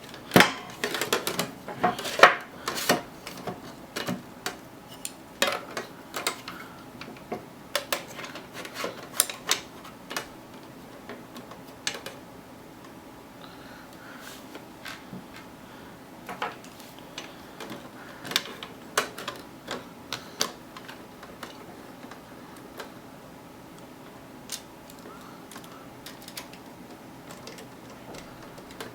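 Irregular clicks, taps and light clatter of metal and plastic computer-case parts being handled and fitted by hand, busiest in the first ten seconds and sparser after.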